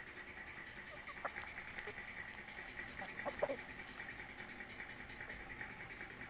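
Birds calling faintly, with a few short, louder calls about a second in and again around three and a half seconds in, over a steady high-pitched hum.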